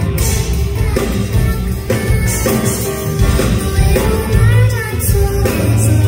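Live pop ballad: a woman singing into a microphone while playing a grand piano, backed by a band with a drum beat struck about once a second.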